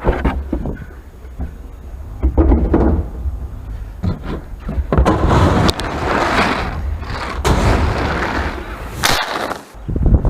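Strong gusting wind buffeting the microphone: a heavy low rumble with irregular noisy surges, loudest in the middle of the stretch.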